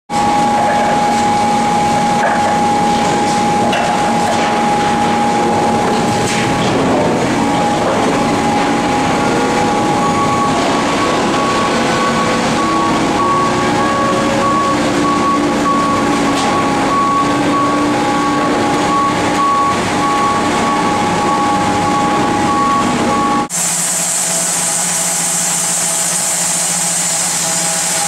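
Oak sawmill machinery running: a loud, steady mechanical din with a held high whine. About 23 seconds in it cuts abruptly to a different steady machine sound.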